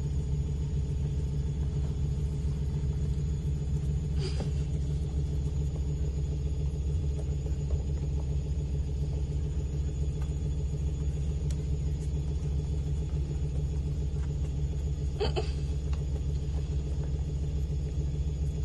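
Steady low mechanical hum that runs unchanged throughout, with two brief faint sounds about four seconds and fifteen seconds in.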